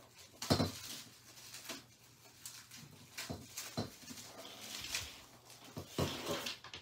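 Sections of a pre-lit artificial Christmas tree being handled: plastic branches rustling and clear plastic wrapping crinkling, with a few light knocks as the pieces are moved.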